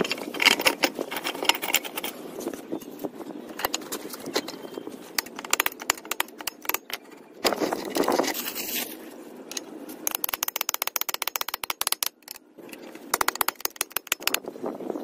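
Metal clinking, scraping and rattling from tapered roller bearings and differential parts being handled and fitted into the axle housing, with bursts of rapid clicking about two-thirds of the way through and near the end.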